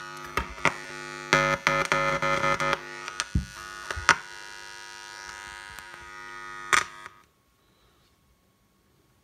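Small loudspeaker wired to a 12 V DC power adapter giving a steady electrical buzz, broken by loud crackles and pops as a loose wire end is touched against the connection. The buzz cuts off suddenly about seven seconds in.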